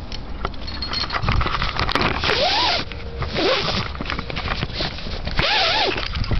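Climbing rope pulled in two short rasping bursts about three seconds apart, each with a rising-then-falling squeal, over a steady low rumble of wind and handling on the microphone.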